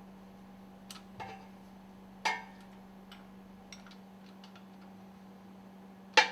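Several sharp metallic clinks and knocks of tools and bolts against the steel stuffing box during bolt removal, each with a short ring, the loudest near the end, over a steady low hum.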